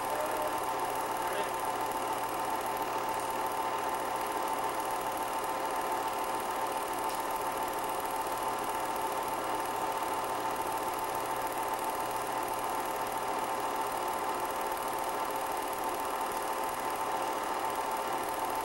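Film projector running: a steady mechanical whir and clatter with a constant hum, unchanged throughout.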